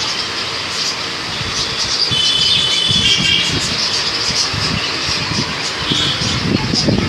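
Many small caged birds chirping and chattering together in a constant flurry of short high calls, with a few brief whistled notes about two seconds in and again near six seconds.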